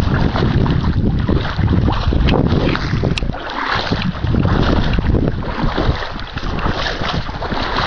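Wind buffeting the camera microphone in loud, uneven gusts over open water.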